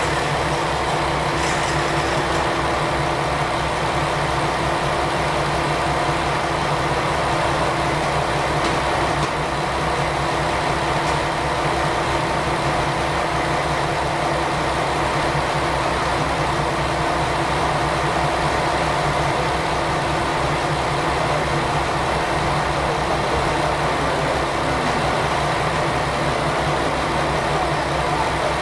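Diesel railcar engine idling steadily with an even low throb while the train stands still.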